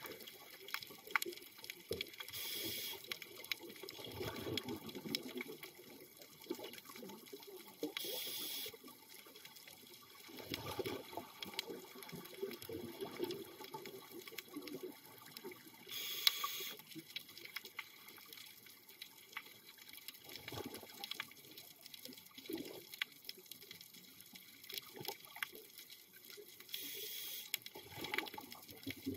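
Scuba diver breathing through a regulator underwater: a short hiss from the regulator on each inhale, four times at about eight-second intervals, each followed by bubbling as the exhaled air escapes.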